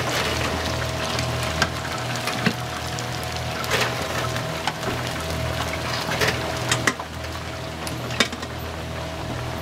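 Battered chicken sizzling and crackling in a deep fryer's hot oil, with several sharp metallic clicks as a mesh strainer and tongs lift the pieces out onto a wire draining rack, over a steady low hum.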